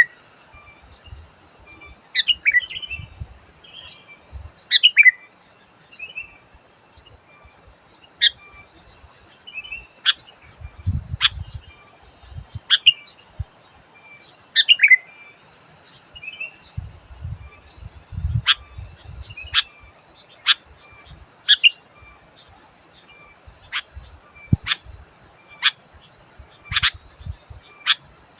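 Sooty-headed bulbul calling: loud, sharp whistled notes that sweep downward, repeated every second or two. In the second half they become shorter, clipped notes coming about once a second.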